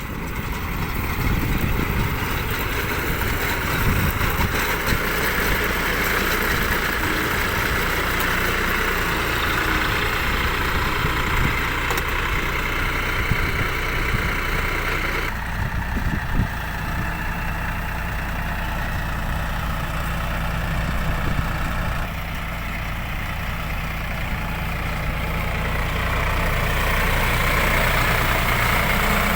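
Kartar baler working, with the engine driving it running steadily. About halfway through, the higher machine clatter drops and the sound turns lower and duller.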